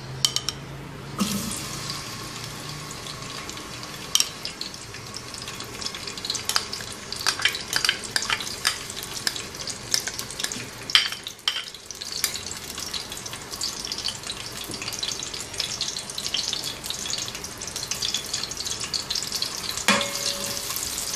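Sliced onions go into hot oil in a metal pot and fry with a steady sizzle and many small crackles. A spoon stirs them near the end.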